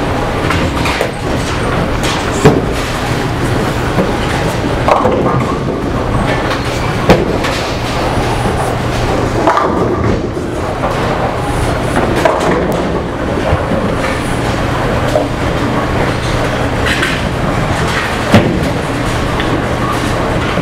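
Bowling alley sound: bowling balls rolling down the lanes with a steady rumble and a low hum underneath. Pins crash sharply three times, about two and a half seconds in, around seven seconds, and near the end.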